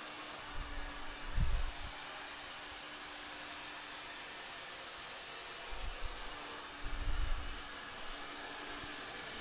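Hand-held salon hair dryer blowing steadily, a broad hiss of air over a faint motor hum, as hair is blow-dried over a round brush. Low thumps come about a second in and again around seven seconds.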